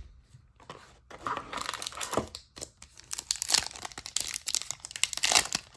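Foil wrapper of a trading card pack crinkling and tearing as it is ripped open and handled, in irregular crackles that start about a second in.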